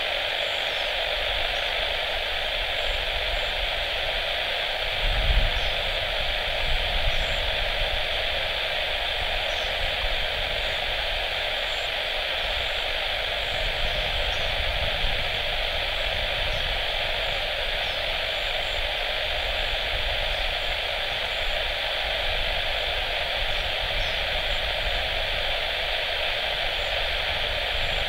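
Steady hiss of static from an airband radio receiver between air traffic control transmissions, with a few low rumbles underneath, the strongest about five seconds in.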